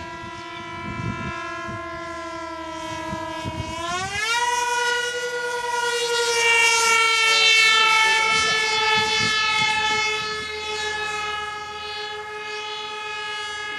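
Electric motor and propeller of a radio-controlled foam flying wing humming in flight. The pitch holds steady, rises sharply about four seconds in, then slowly drops as the hum grows louder and then eases.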